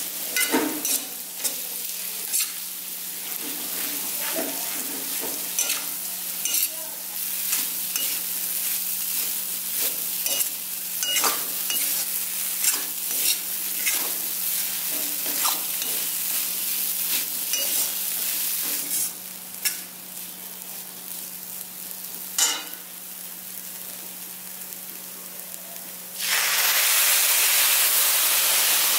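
Metal ladle scraping and clicking against an aluminium kadai as pearl millet flour is stirred and fried, with a soft steady sizzle. Near the end, milk poured into the hot pan sets off a sudden loud hiss.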